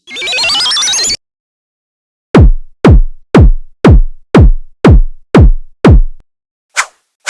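Synthesized electronic sounds: a rising synth sweep lasting about a second, then, after a short gap, eight deep drum-machine thuds, about two a second, each dropping sharply in pitch. Short sharp clicks come in near the end.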